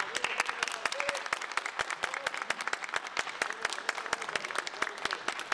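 Audience clapping after a guitar ensemble's performance, with a few faint voices among the claps.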